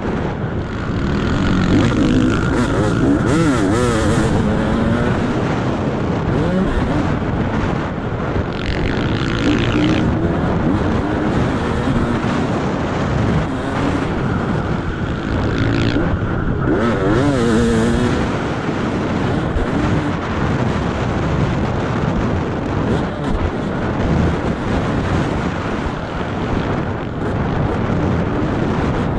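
Motocross dirt bike engine running hard, its revs rising and falling over and over as the rider accelerates and shifts around the track, with steady rushing noise underneath.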